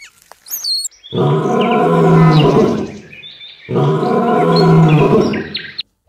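Lion roaring: two long, deep roars, one after the other with a short break between them.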